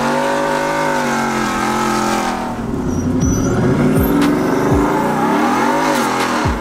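Performance car engines revving, the pitch climbing and falling back several times, with a few sharp drops in pitch in the second half.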